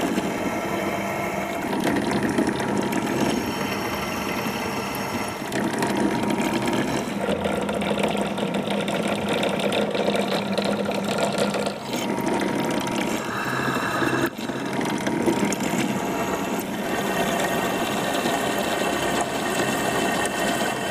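Bench drill press running with a steady motor hum, its twist drill cutting bolt holes into an aluminium gearbox housing, with a couple of short breaks.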